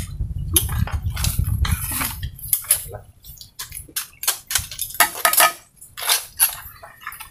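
Many irregular sharp clicks and clinks of shells against plates and dishes as shellfish is picked apart and eaten by hand, with a low rumble during the first couple of seconds.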